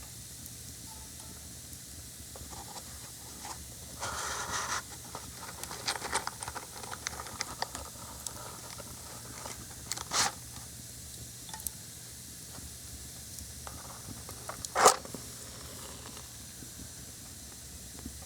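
Wooden matches being struck and burning over a steady hiss: a strike and flare about four seconds in, scattered small crackles after it, and short sharp bursts around ten seconds and near the end, the last one the loudest.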